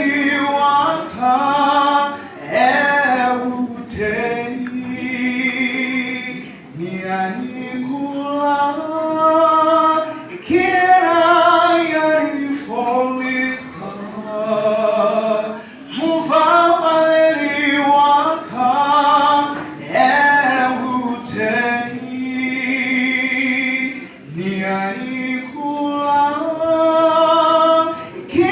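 Voices singing a church song.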